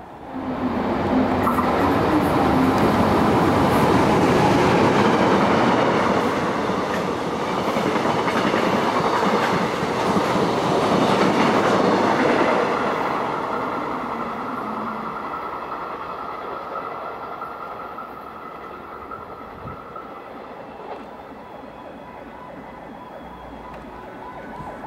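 Korail Saemaeul-ho passenger train passing through a station at speed: a loud, steady rush of wheels on rails with some rail clatter, which fades away after about twelve seconds as the train recedes.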